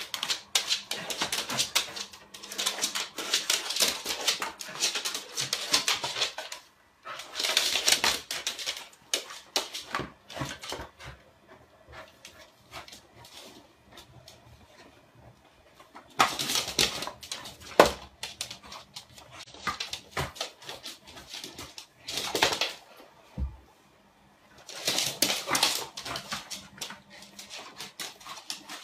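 A corgi playing tug with a flat mop pushed across a wooden floor: the mop pad scrapes and swishes in several bursts of a few seconds each, with clicks and the dog's own noises mixed in.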